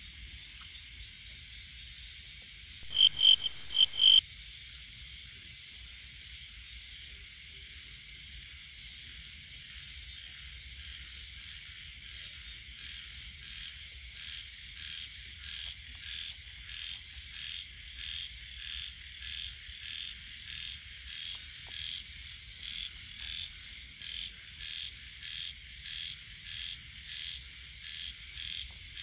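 Frogs calling at night over a steady high-pitched insect drone. About three seconds in there is a burst of four short, loud chirps. From about twelve seconds on, a rhythmic call repeats about one and a half times a second and grows louder.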